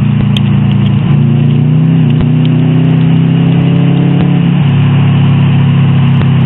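Subaru WRX's turbocharged flat-four engine heard from inside the cabin while the car is driven, running loud and steady at a mid-range pitch with a few slight changes in pitch along the way, over road noise.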